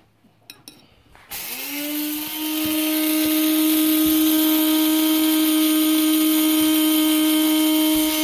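Electric blade coffee grinder grinding whole cumin seeds. After a few clicks as it is handled, the motor starts a little over a second in, its whine rising as it spins up, and then runs steady.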